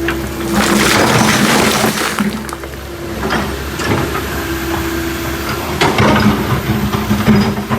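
Backhoe's diesel engine running steadily, with loud crunching and clattering of rock and gravel as the bucket works the riverbed, about half a second in and again in the last two seconds.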